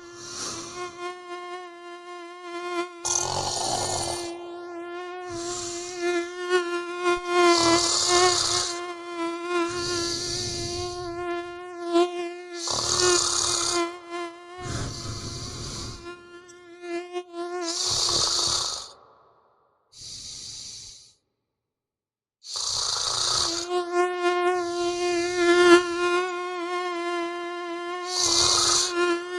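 A mosquito's high whine, a steady buzz with a slightly wavering pitch, over a person snoring in rough breaths every couple of seconds. Both stop for about a second and a half a little past two-thirds of the way through, then start again.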